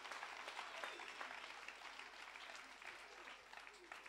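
Faint applause from a congregation, many hands clapping, dying away gradually.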